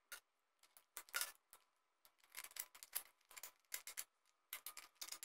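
Small hand cutters snipping and snapping bits of plastic support material off a 3D-printed part: an irregular series of faint, sharp clicks and snaps.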